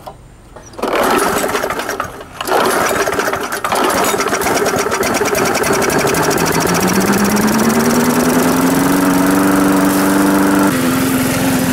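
Weed Eater walk-behind lawn mower's small petrol engine pull-started just after refuelling. It catches about a second in, falters briefly, catches again, then speeds up over a few seconds and settles into a steady run.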